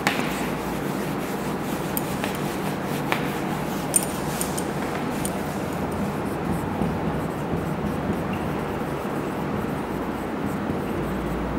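A whiteboard being wiped clean with a duster, then a marker writing on the board, with a few light taps, over a steady background hiss.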